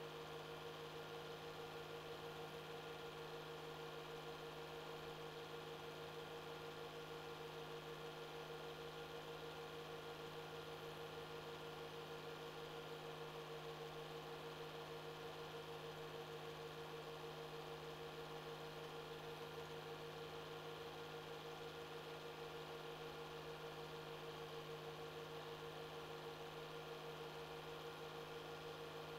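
Steady electrical hum with a faint even hiss and no other sound, the noise floor of a silent 8mm film transfer with no soundtrack.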